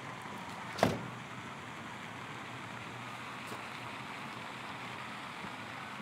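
An SUV's door slams shut once, about a second in, over a steady low hiss of background noise.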